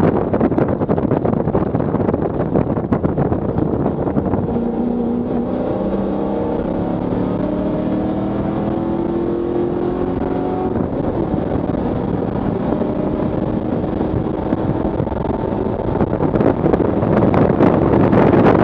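Ford Mustang track car's engine and exhaust, heard inside a stripped, caged cabin at speed. It is loud at first while braking from high speed, then settles to a quieter part-throttle note that rises slowly in pitch through the corner. It swells again to full-throttle acceleration near the end.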